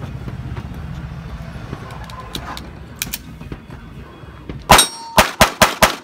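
A fast string of six pistol shots, about five a second, starting near the end, with steel ringing as the rounds hit a pepper popper target.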